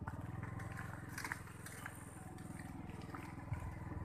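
Small motorcycle engine running steadily at low revs, a fast even low throb, with a few light clicks and rattles over it.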